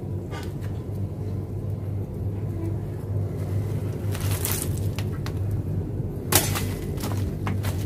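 Baked clay crust crumbling and dry, scorched banana leaves crackling as the clay-baked duck is pulled out of its broken shell, with a sharp knock a little after six seconds. A steady low hum runs underneath.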